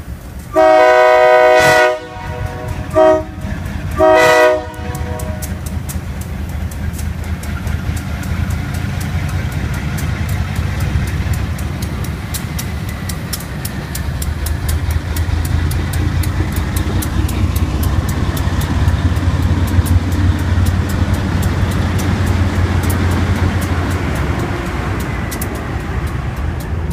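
GE B23-7 diesel locomotive's Nathan K3LA three-chime air horn finishing a grade-crossing signal: a long blast, a short one, then another long one. The locomotive's V12 diesel engine and its wheels on the rails then run steadily past, louder as the engine goes by, under the fast regular ringing of the crossing bell.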